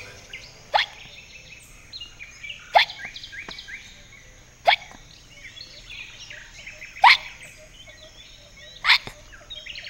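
A cartoon character hiccuping five times, about two seconds apart, each hiccup a short sharp sound that drops in pitch.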